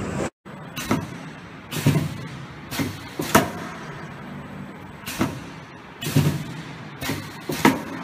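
Pneumatic copper-pipe punching machine working: short, sharp clunks with a hiss of air, roughly once a second, sometimes two close together, as its air-driven punch heads stroke.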